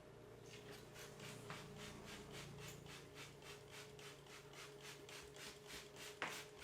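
Hands rubbing briskly over a person's hair and scalp in a champissage head massage, a quick even rhythm of about four to five strokes a second. A single sharp click sounds near the end.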